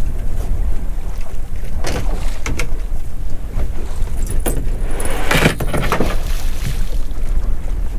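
Wind buffeting the microphone on a small boat at sea, a steady low rumble, with scattered knocks and clicks from gear on deck and a short rushing burst about five seconds in.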